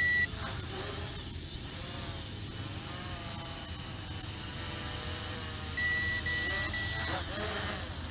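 SG700 quadcopter drone's motors and propellers whining in flight, the pitch sliding up and down as it manoeuvres. A high electronic beep sounds at the start and again three times in quick succession a little past halfway.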